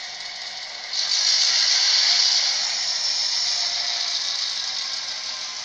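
ESU sound decoder in an HO-scale SD9 model playing a loud air-release hiss through its small speaker, starting about a second in and slowly fading, over a steady background sound.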